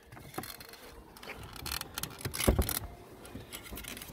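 Plastic housing panels of a Kärcher K5 pressure washer clicking, knocking and scraping against each other as the top cover is lifted off, with the loudest knock about two and a half seconds in.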